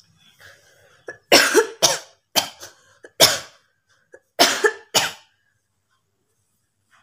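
A person coughing: about six hard coughs in quick pairs, over roughly four seconds, as a deliberate coughing challenge.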